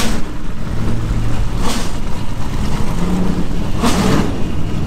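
Historic GT racing car's engine running at low speed as the car creeps along, a deep uneven rumble with two short louder rushes, about a second and a half in and near the end.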